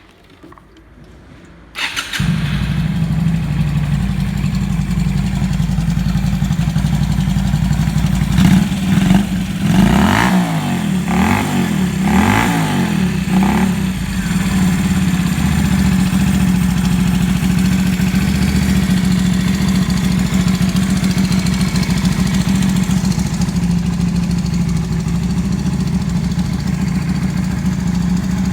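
Yamaha Drag Star 250's air-cooled V-twin, breathing through an American Dreams gatling aftermarket muffler, catches about two seconds in and settles to a steady idle. Around the middle it is blipped several times, the revs rising and falling, then drops back to idle. The seller presents it as running with no abnormal noise.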